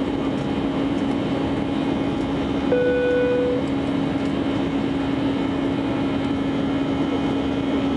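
Airliner cabin noise during the climb just after takeoff: a steady roar of engines and rushing air with a constant hum underneath. A short, steady beep sounds once, about three seconds in.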